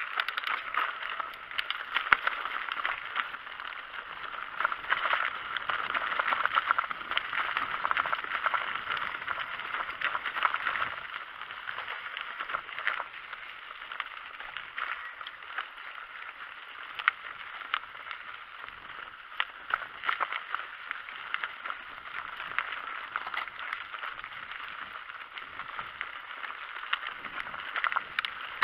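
Mountain bike ridden down a dirt singletrack, heard from the rider's own camera: a constant jolting rattle and clatter with many sharp knocks as the bike and camera shake over the bumps, busier in the first half and calmer after about twelve seconds.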